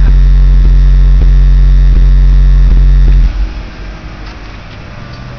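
Single 18-inch Ascendant Audio car subwoofer playing a very loud, steady deep bass tone at full scale, with short clicks about twice a second. The tone cuts off suddenly about three seconds in, leaving faint background noise.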